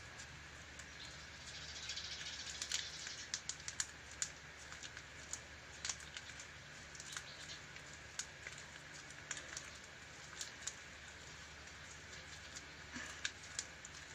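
Sticky homemade glue slime being kneaded by hand, giving faint irregular clicks and crackles as it pulls apart from the fingers, denser about two to four seconds in.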